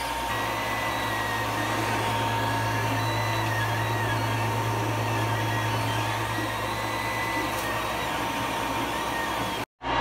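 Creality Ender 3D printer running mid-print: its cooling fans give a steady whir with a constant hum, while the stepper motors add thin whining tones that shift in pitch as the print head moves. The sound cuts out briefly near the end.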